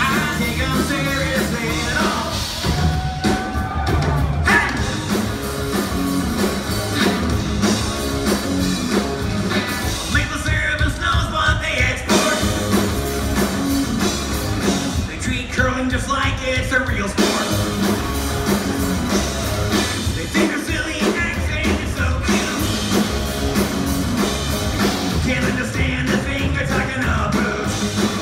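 Live rock band playing loud, amplified music through a concert PA, with a lead singer's vocals over drums and electric guitar.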